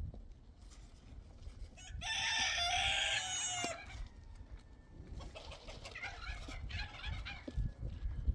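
A rooster crows once, about two seconds in, for about a second and a half. Fainter bird calls follow in the second half.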